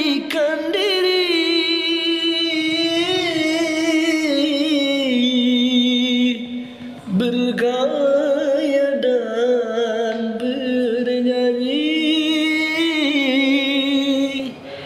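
Male singer singing dangdut with no accompaniment, drawing out long notes with a wavering vibrato and ornamented turns. He breaks off briefly for a breath about six seconds in, then carries on.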